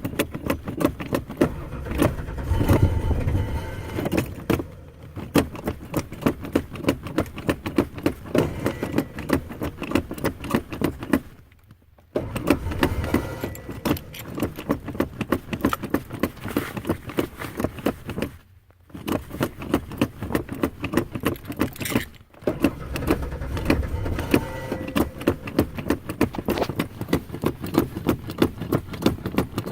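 Ford Ranger pickup's starter cranking the engine over in long bursts, each stopping briefly before the next, with a fast even rhythm: a hard-starting engine that will not fire.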